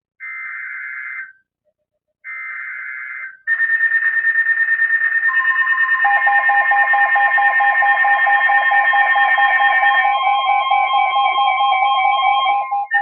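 Emergency Alert System header tones: the last two of three short bursts of buzzy digital data tone, each about a second long with a pause between them. From about three and a half seconds in, a loud pulsing block of several alert tones layered over one another sounds for about nine seconds and cuts off just before the end. The header marks the start of a new alert, here a flash flood warning.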